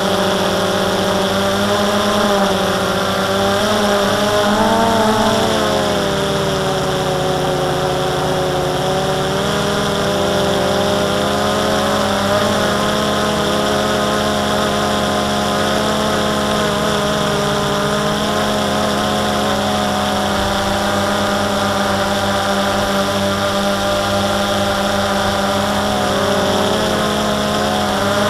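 DJI Phantom 2 quadcopter's electric motors and propellers whining steadily. The pitch wavers briefly about five seconds in and again near the end as the motors change speed.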